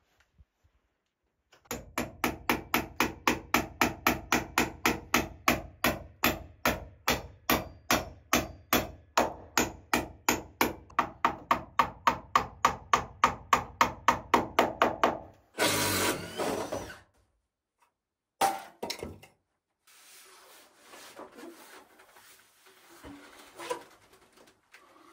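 Hammer driving nails into wooden floor joists: rapid, even blows about four a second for some thirteen seconds, then they stop. A louder rushing, scraping noise follows for about a second and a half, then a couple of short knocks and faint rustling and creaks.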